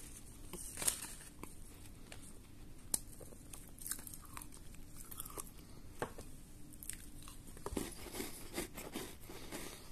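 Crisp butter and oats biscuits being bitten and chewed. A few sharp crunching snaps come, then a denser run of chewing crunches near the end.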